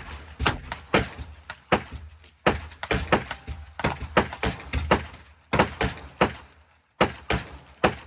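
Gunshots in quick, uneven succession, about two or three a second, each a sharp crack with a short ringing tail.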